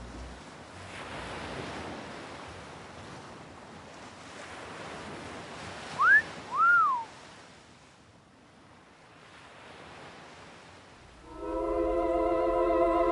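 Soft ocean-surf hiss, broken about six seconds in by a two-note wolf whistle: a quick rising sweep, then a rise-and-fall. Near the end, music with long, wavering held notes comes in.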